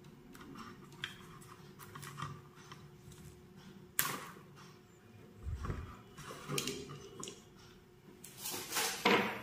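Hands wrapping black insulating tape round a twisted wire joint and handling the stiff wires: light rustling and clicking, with a sharp click about four seconds in and louder rustling near the end.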